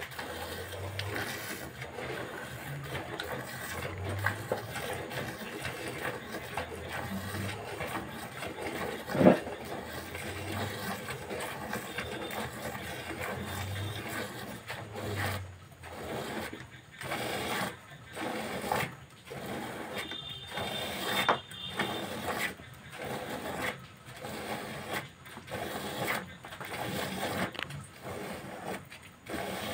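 A cow being milked by hand, the milk squirting in rhythmic streams into a bucket of foaming milk. The squirts turn into distinct pulses about once a second in the second half. A single sharp knock comes about nine seconds in.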